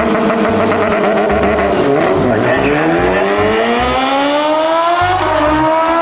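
Racing motorbike engine sound revving: the pitch holds, dips about two seconds in, then climbs steadily as it winds up. A low intermittent thumping beat runs underneath.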